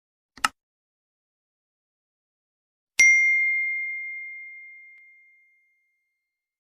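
A single short click, then a few seconds later a bell struck once, ringing at one clear pitch and fading away over about two seconds: the mouse-click and notification-bell ding sound effects of an animated subscribe button.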